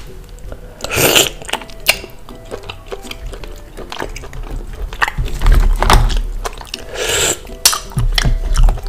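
Close-up eating sounds: chewing and slurping seafood in sauce, with clicks of shells being picked and handled, and two loud slurps, about a second in and near the end. Quiet background music plays under it.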